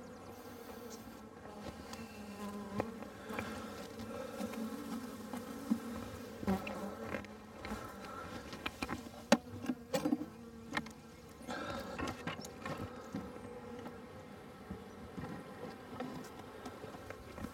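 A newly installed package of honeybees buzzing in a steady hum in and around an open hive. A few sharp clicks and knocks stand out about nine to eleven seconds in.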